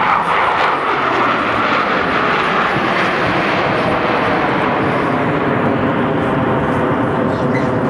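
The Blue Angels' F/A-18 Hornet jets passing overhead in close formation, a loud, steady rush of jet engine noise that holds throughout.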